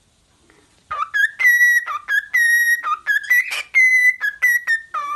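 Cockatiel whistling a tune, starting about a second in: a quick run of clear notes, some held steady on one pitch and some short, with quick dips to a lower note between them.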